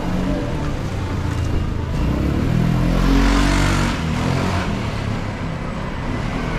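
A motor vehicle drives past close by over steady street noise. Its engine and tyre noise swell to their loudest about three seconds in, then fade.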